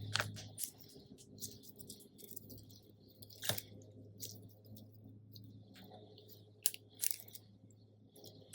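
Hands squeezing and handling a Nice-cream NeeDoh-dupe squishy toy, making faint, scattered squishy clicks and crackles over a low steady hum.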